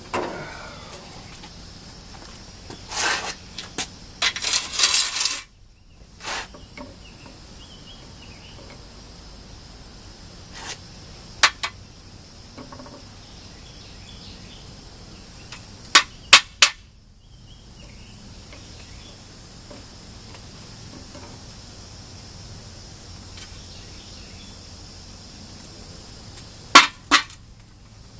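Insects chirring steadily and high-pitched, with occasional sharp knocks and taps. There is a short clattering run about four to five seconds in, three quick sharp knocks about two thirds of the way through, and two more near the end.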